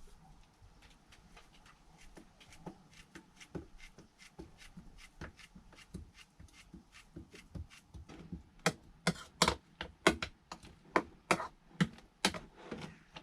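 Knife chopping food on a cutting board in a series of irregular knocks, a few a second, growing much louder about two-thirds of the way in.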